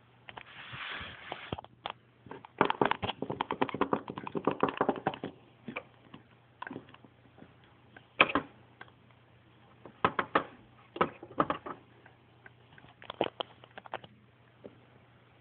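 Small plastic toy figures being handled, with irregular clicks and taps: a brief rustle near the start, a dense run of clicking a few seconds in, then scattered single taps.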